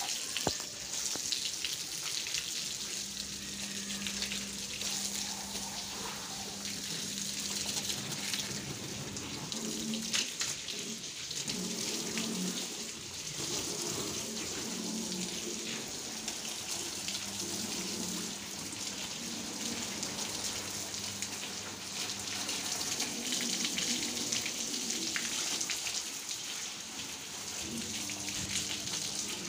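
Water spraying from a garden hose onto window glass and a PVC door while the windows are rinsed down, splashing and running onto a stone floor: a steady hiss of spray and splatter.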